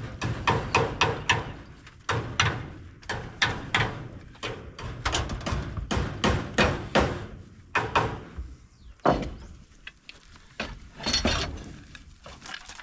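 Hammering: runs of sharp knocks in quick succession, broken by short pauses.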